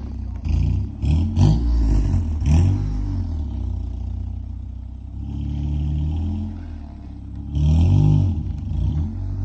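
Car engine idling, then revving up and easing off several times, as it tows a car by a line.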